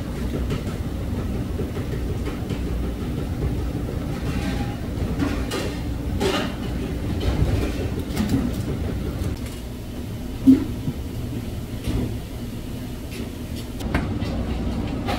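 Steady low rumble of restaurant kitchen background noise, with a few light clinks and knocks of dishes, the sharpest about ten and a half seconds in.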